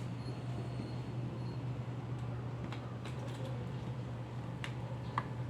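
Mini ceiling fan running with a steady low hum and a hiss of moving air, with a few scattered light clicks.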